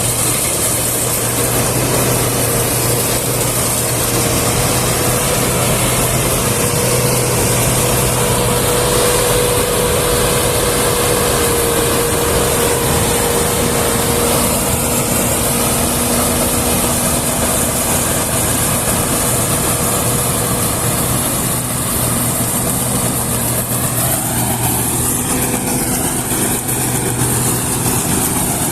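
Combine harvester running steadily under load, a continuous loud machine noise with a steady hum.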